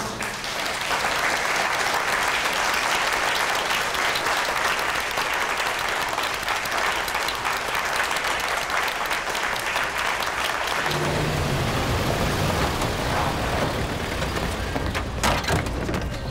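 Crowd applauding steadily for about eleven seconds. Then a low rumble comes in, with a few sharp clicks near the end.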